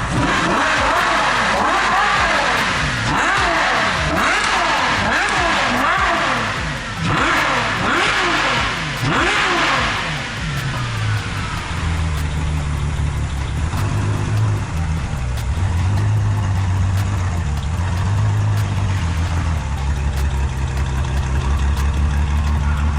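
A V12 car engine revved up and down in repeated blips for about the first ten seconds, then settling into a steady idle.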